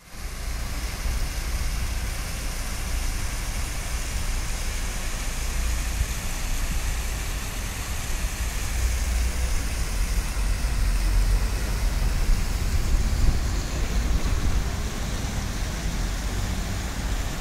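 Steady city street noise: a low traffic rumble that swells and fades, under the hiss of Sarindar Fountain's water jets.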